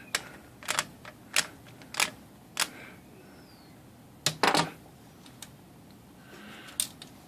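Sharp metal clicks and taps, about one every half second at first, then a louder clatter about four seconds in, as a 1/4 inch nut driver works a small nut loose from the paper release lever pivot of a Smith Corona Coronet Automatic 12 portable typewriter.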